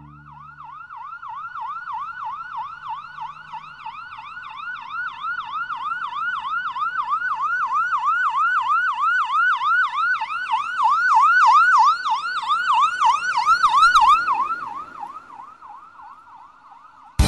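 Recorded police-style electronic siren sound effect in a fast yelp, about three or four rises and falls a second. It swells louder toward the middle and fades away near the end.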